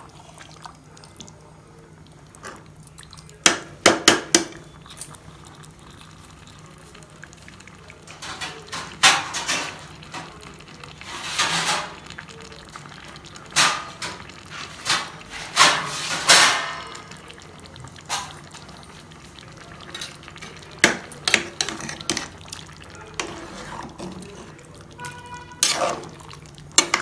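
Flat metal spatula stirring thick chicken curry in an aluminium pressure cooker pot, with irregular scrapes and knocks of metal on the pot and wet sounds from the gravy, over a low steady hum.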